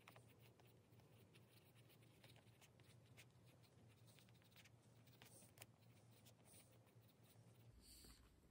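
Faint scratching of a pencil writing on notebook paper, in short irregular strokes.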